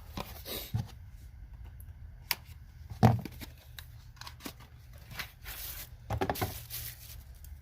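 Knipex slim water-pump pliers being handled: scattered metal clicks and knocks, with one sharper knock about three seconds in and a quick run of clicks near the end.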